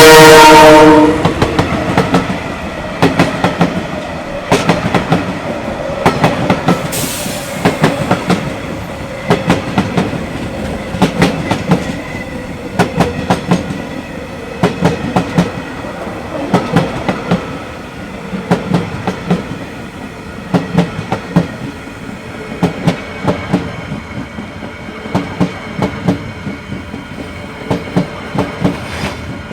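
Locomotive horn sounding a loud chord that cuts off about a second in, then freight wagons rolling past with a steady clickety-clack of wheels over the rail joints.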